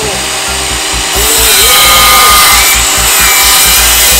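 DeWALT miter saw running, its spinning blade cutting down into a wooden board from about a second in, the noise getting louder and harsher while the teeth are in the wood.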